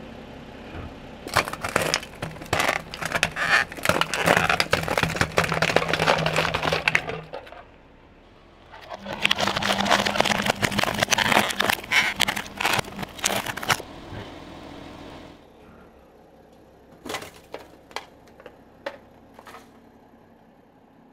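A car tyre rolling over something brittle and crushing it: dense cracking and crackling for about six seconds, a short pause, then another run of about five seconds, with the car's engine running low underneath. A few separate cracks follow near the end.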